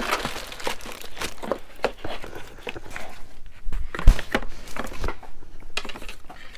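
Packaging crinkling and rustling as wallets are handled and the next one is taken out of the box, with scattered light clicks and one dull thump about four seconds in.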